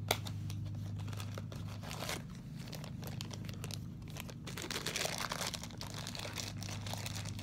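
Cardboard blind box and the figure's wrapping being handled and pulled open by hand: irregular crinkling and tearing, busiest about five seconds in, over a steady low hum.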